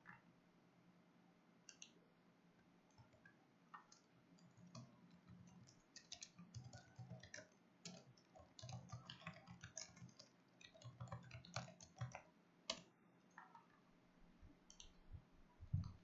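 Faint, irregular clicks and taps from a computer mouse and keyboard in use, picked up by a headset microphone, with near silence between them.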